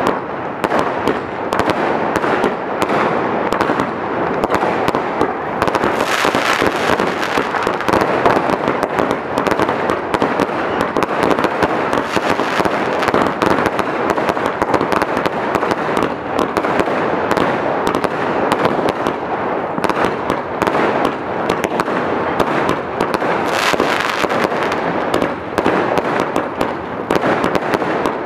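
Standard Fireworks multi-shot aerial cake firing a rapid, unbroken barrage: launches and bursts follow one another so closely that they overlap. The volley grows denser about six seconds in and again near the end.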